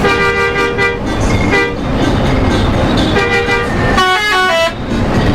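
Indonesian bus "telolet" horn, a multi-trumpet musical air horn. It sounds a held chord for about a second, then a short blast, then another held chord, then a quick run of stepped notes near the end, over steady engine and road noise.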